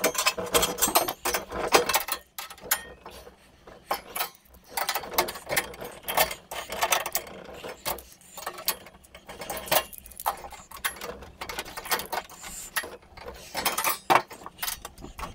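Handling noise of a sheet-steel tool board being shifted and fitted against a wall: many irregular light clicks, knocks and scrapes of metal, with a screwdriver and small tools touching the steel.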